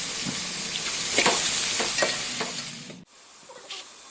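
Chopped onions sizzling in hot oil and ghee in a pan, with a spoon stirring and scraping now and then. The sizzle cuts off suddenly about three seconds in, leaving a much quieter background.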